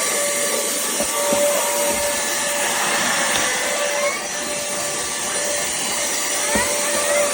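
Pemacom cordless handheld vacuum running steadily: a constant motor whine over the hiss of rushing air, with a few short clicks or knocks.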